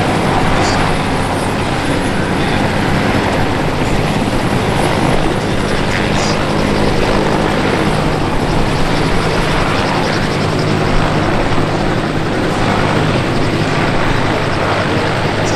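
Westland Whirlwind and Wessex helicopters running close by, rotors turning, giving a loud, steady rotor and engine noise.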